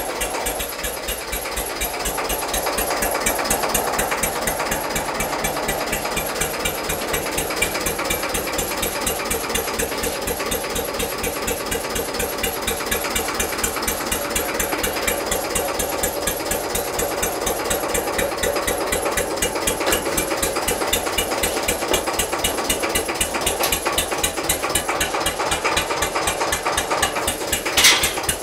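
Hanomag R16 tractor's diesel engine running steadily, an even rapid beat of firing strokes. A single sharper clank near the end.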